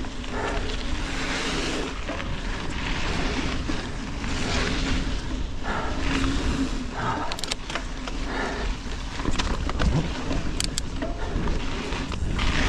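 Canyon Spectral mountain bike ridden over sandy forest singletrack, heard from a bike-mounted action camera: a steady rumble of wind on the microphone and tyres rolling on sand and dirt, with scattered clicks and rattles from the bike.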